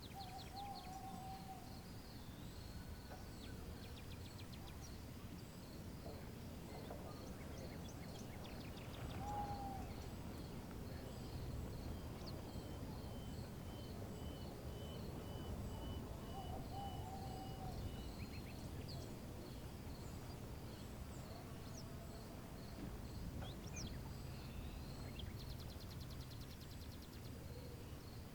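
Outdoor natural ambience: a low rumble of wind or distant background, a steady high chirping pulsing a few times a second throughout, and a few short whistled calls spaced several seconds apart.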